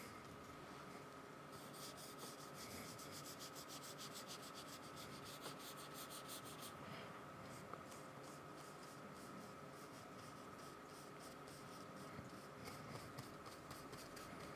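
Faint scratching of paintbrush bristles dabbing and dragging acrylic paint across paper in quick, repeated short strokes, with a brief pause about seven seconds in.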